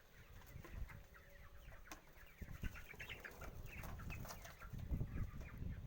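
A flock of broiler chickens clucking and chirping faintly, many short calls overlapping. The birds have the rattling 'ghad-ghad' breathing that the keeper puts down to cold.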